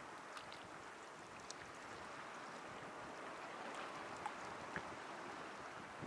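Sea water washing at the shore: a steady rush of small waves that swells a little midway, with a few faint splashes and drips.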